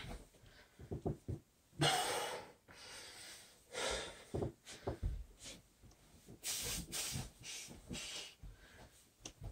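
A man breathing hard from exertion during a bodyweight floor exercise, in loud rasping breaths about every second or two. Short soft thuds of his bare feet and hands on the carpet come in between.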